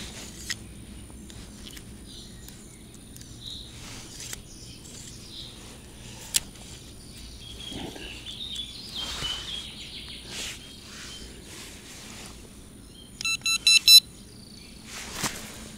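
Scattered bird chirps over quiet outdoor background, with a few sharp clicks. About 13 seconds in, a quick run of electronic beeps, the loudest sound.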